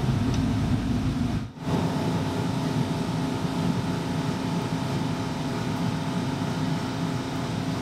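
Steady drone of a motor-driven workshop machine running, with a brief break about a second and a half in.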